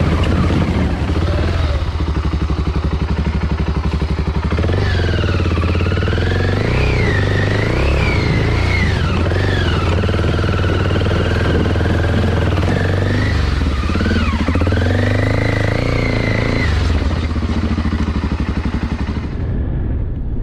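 BMW F650GS Dakar's single-cylinder engine running as the bike wades through a shallow water crossing, with water splashing around it. The revs rise and fall repeatedly through the middle of the crossing.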